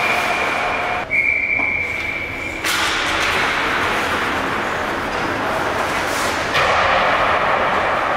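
Ice hockey game sounds: skates and sticks on the ice and rink noise. For the first few seconds a steady high-pitched tone sounds over it, breaking off briefly about a second in and stopping near three seconds in.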